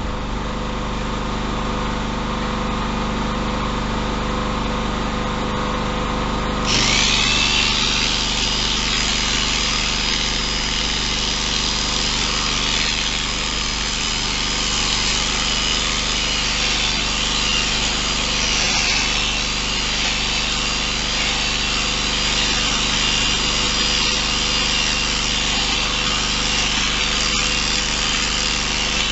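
A steady motor hum, then about seven seconds in an electric sheep-shearing handpiece starts up with a quick rising whine and runs on as a steady, loud whirr while clipping the sheep's wool.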